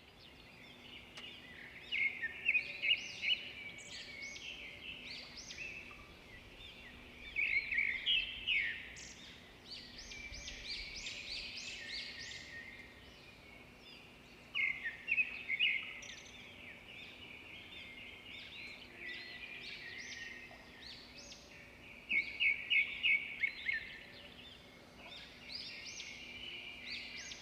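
Small songbirds chirping and twittering steadily, with louder runs of rapid chirps about every seven seconds.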